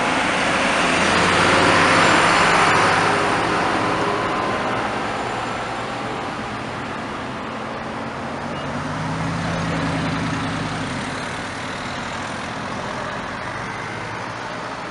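Slow road traffic passing, among it a Bugatti Veyron's W16 engine running at low revs with tyre noise. The sound is loudest about two seconds in, and a low engine drone swells and fades about two-thirds of the way through.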